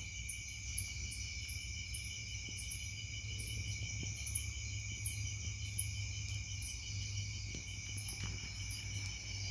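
Insects chirping steadily in a dense chorus, with a higher chirp repeating about twice a second, over a low steady hum.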